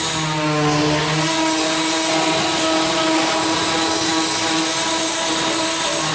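Pipe organ holding loud, sustained chords, with the notes changing about a second in.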